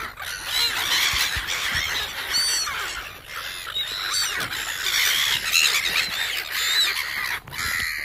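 A flock of red-billed gulls calling over one another: many short, high cries overlapping in a dense, continuous chorus.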